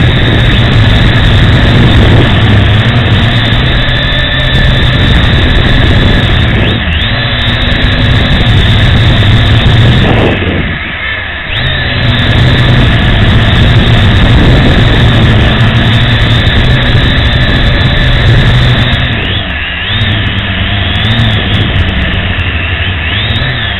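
Propel HD quadcopter's electric motors and propellers whirring steadily, as picked up by the drone's own onboard camera. The sound drops briefly about halfway through and again near the end, with the pitch wavering slightly.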